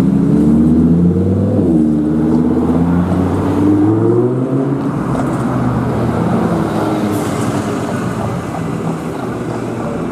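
Volvo tri-axle double-decker bus accelerating away, its engine note rising, dropping at a gear change about one and a half seconds in, and rising again until about four seconds in. It then fades into steady road traffic noise.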